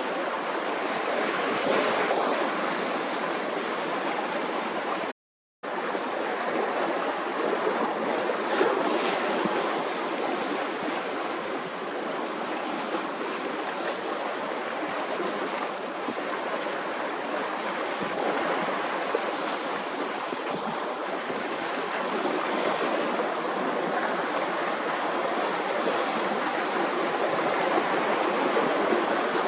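Steady rushing wash of sea waves on the shore, with no distinct tones. The sound cuts out completely for about half a second around five seconds in.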